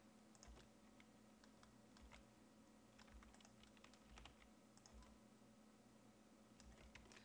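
Faint, irregular clicks of computer keyboard keys being tapped, over a low steady hum.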